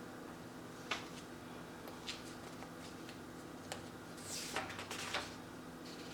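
Hands handling a boxed photo album: light clicks and taps a few times, then a short sliding, rustling sound with a couple of knocks about four to five seconds in, over a steady low hum.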